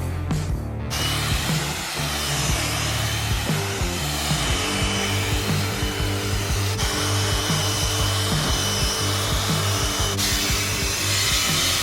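Background music with a steady beat, overlaid about a second in by a loud, steady rushing noise.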